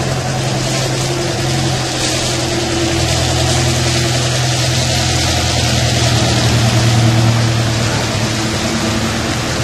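Engine of a large emergency vehicle running steadily at low speed, under the steady hiss of heavy rain.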